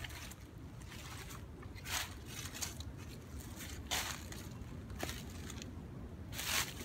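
Footsteps crunching and rustling through dry fallen leaves and grass, a few louder steps spaced a second or two apart.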